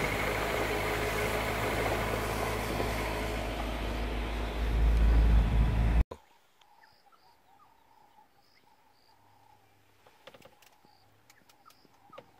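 Open safari vehicle's engine running as it drives along a dirt road, getting louder about four and a half seconds in. At about six seconds the sound cuts off abruptly to a faint background of insects chirping, with a few soft clicks near the end.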